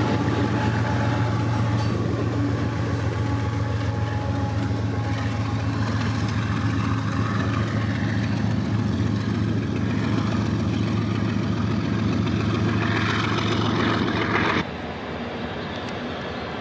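BNSF diesel locomotive running at the rear of a coal train as it passes, with the coal hopper cars rolling over the rails and a steady low engine hum. About two seconds before the end the sound cuts abruptly to a quieter, more distant train sound.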